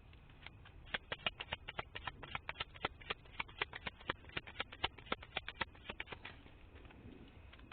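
A quick, irregular run of sharp taps and clicks, several a second, starting about a second in and stopping about six seconds in.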